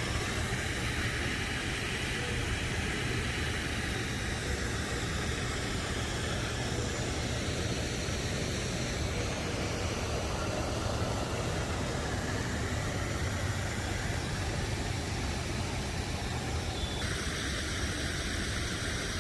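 Garden waterfall's water rushing and splashing in a steady, unbroken wash of noise with a strong low rumble.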